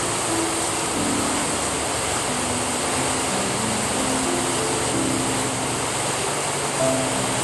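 Steady rain, an even hiss, with soft held music notes playing over it.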